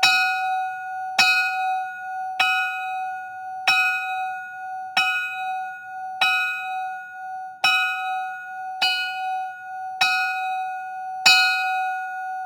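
Railroad level-crossing warning bell ringing, single clear strikes about every second and a quarter, each ringing on into the next, ten strikes in all.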